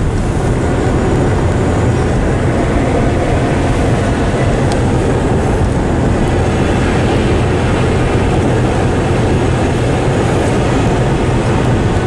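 Steady car road noise heard from inside the cabin while driving: a constant low engine and tyre drone with no changes.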